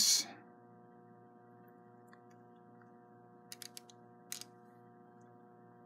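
Faint steady electrical hum at mains frequency and its overtones, with a few light clicks near the middle.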